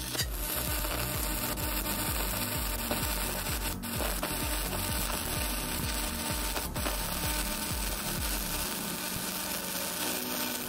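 Stick (shielded metal arc) welding on steel plate: the electrode's arc crackles and sizzles steadily while a bead is laid, dropping out for an instant twice. A low, regular pulse runs underneath until near the end.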